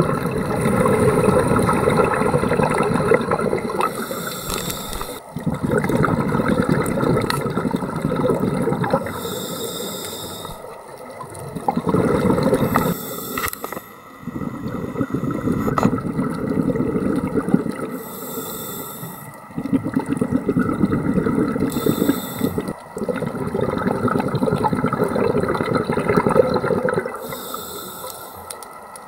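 Scuba diver breathing through a regulator underwater: a short high hiss on each inhale, then a long rush of exhaled bubbles, about six breaths in a row.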